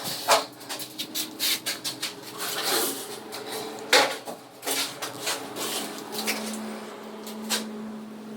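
Hard objects clattering and knocking as they are handled, a quick irregular run of sharp clicks with two louder knocks, one at the very start and one about four seconds in. A steady low hum comes in about six seconds in.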